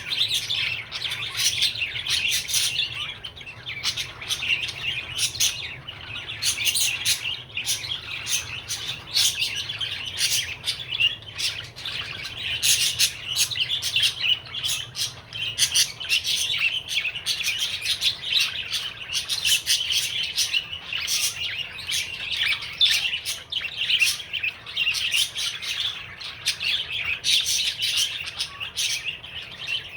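Budgerigar warbling and chirping without a break: a fast, chattering song with many sharp clicks mixed in.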